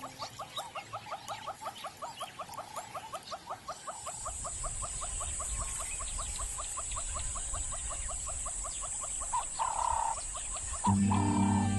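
A rapid run of short, high chirping calls, about seven a second, from a spotted hyena and an African wild dog facing off. After about four seconds the calls give way to a steady high hiss and a low rumble, and music comes in near the end.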